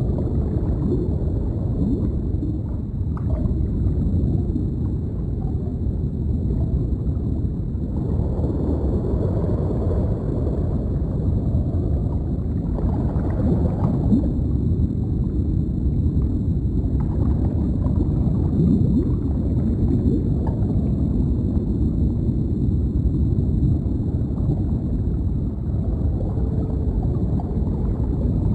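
Deep underwater ambience: a steady low rumble with scattered bubbling gurgles, and a faint steady high hum.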